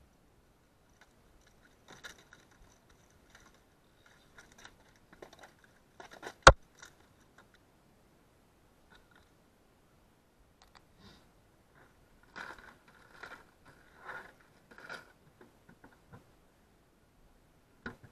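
Handling noises on a small boat as a landed fish and fishing tackle are dealt with: scattered clicks and scrapes, one sharp knock about a third of the way through, and a run of rustling scrapes in the second half.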